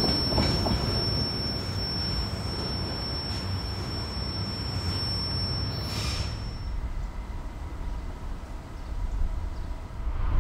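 Autorack freight train rolling away on the main line: steady wheel-on-rail rumble with a thin, steady high whine. About six seconds in the sound changes abruptly to a quieter low rumble. Near the end it grows louder as another train approaches.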